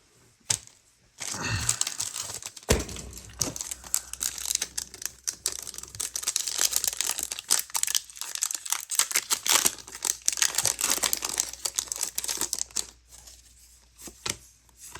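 Foil booster pack wrapper of a Pokémon trading card game pack being torn open and crinkled by hand. There is dense crackling from about a second in, easing off to a few crackles near the end.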